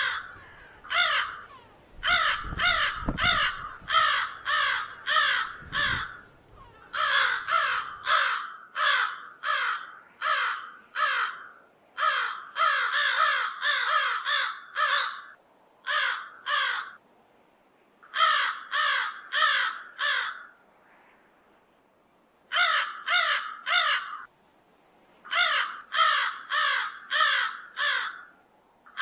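Crow cawing loudly in rapid runs of four to six harsh caws, each run separated by a short pause, with a longer pause about three quarters of the way through.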